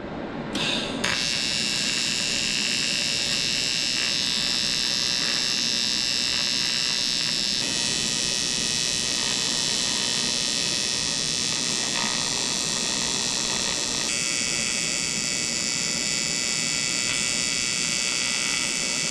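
AC TIG welding arc buzzing steadily while an AN10 fitting is welded onto a cast aluminium sump pan. The arc strikes about a second in, and its buzz changes tone twice as the weld goes on.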